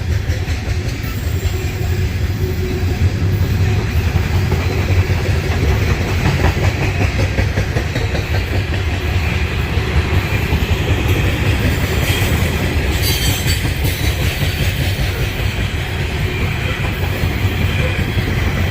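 Freight train cars of a coal train rolling steadily past, wheels rumbling and clicking over the rails. A brief sharper, higher clatter comes about two-thirds of the way through.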